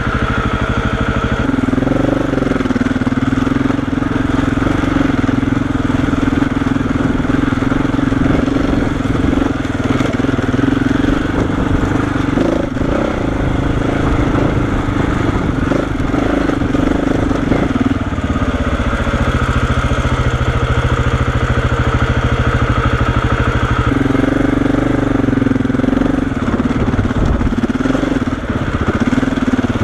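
KTM 690 Enduro's single-cylinder engine running at low speed as the bike climbs a rough dirt track, its note shifting in pitch a few times. A few short knocks sound in the middle.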